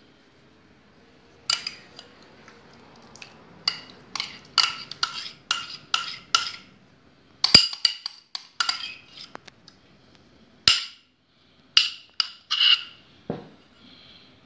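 Metal spoon scraping and clinking against a small bowl as ricotta is scooped out. A run of sharp, ringing clinks starts about a second and a half in and goes on irregularly until near the end.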